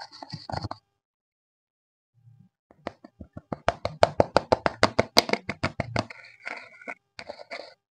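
Clear slime with makeup mixed into it, worked by hand: a fast run of sharp sticky pops and clicks, about ten a second, for a few seconds, then a few softer, irregular squishes.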